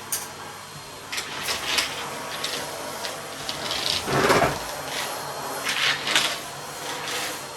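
Household handling noises from tidying: a series of short knocks and rustles, with a louder thump about four seconds in.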